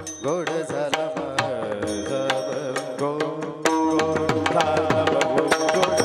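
Devotional kirtan music: a singing voice with wavering, ornamented pitch over quick hand-drum strokes. About three and a half seconds in, the music becomes louder and fuller.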